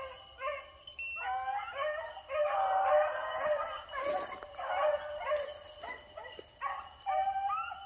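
A pack of beagles baying in drawn-out, repeated howls, several voices overlapping in the middle: hounds giving tongue as they run a rabbit's track.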